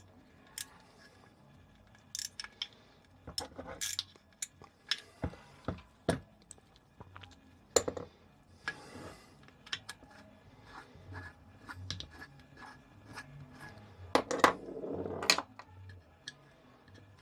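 Small metal carburettor parts and hand tools clicking, tapping and scraping as a moped carburettor's float chamber is opened and taken apart, with irregular sharp taps and a longer rasping scrape a little over halfway and again near the end.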